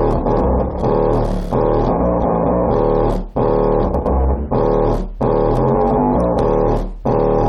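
Bass-heavy song played loud through a rebuilt JL Audio 10W7 subwoofer, its cone pumping hard, with a steady beat.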